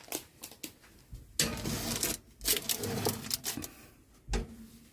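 A metal baking sheet being put into an oven: irregular clicks and a scraping clatter in two stretches, then a single thump near the end.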